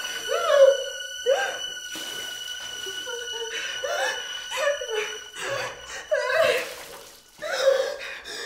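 A woman laughing and giggling in a series of short bursts that rise and fall in pitch. A thin, steady high tone runs under the first six seconds, then stops.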